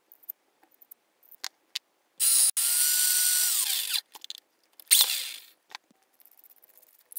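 Electric drill with a metal rod in its chuck runs for nearly two seconds with a steady whine, then spins down. It gives a second short burst about five seconds in. Small metal parts click as they are handled before it.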